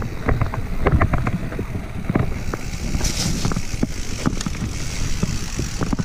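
Mountain bike descending a rough dirt trail: wind buffeting the microphone with a steady rumble, and the bike rattling and knocking over roots and rocks, with a short hiss about three seconds in.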